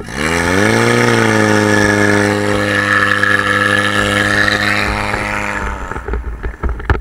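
Portable fire pump engine revving up hard in the first second and then running at high, steady speed, with a hiss of water rushing and spraying from the hose lines. About six seconds in the engine note drops away, and a few sharp knocks follow near the end.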